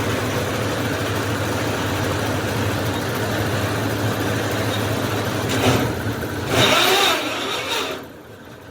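Engine of a borewell drilling rig running steadily with a low hum, growing louder for a couple of seconds near the end before the sound drops away about eight seconds in.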